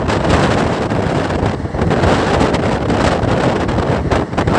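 Wind buffeting the microphone held out of the 17644 Circar Express passenger coach running at high speed, over the steady rumble of its wheels on the rails.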